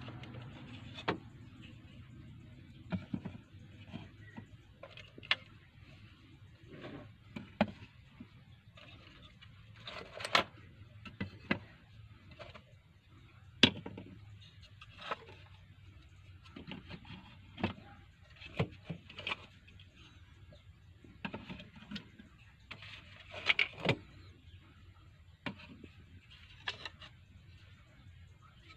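Handmade knives with wooden handles being handled and set down, giving irregular light clicks and knocks, roughly one every second or two, with a louder cluster of knocks near the end.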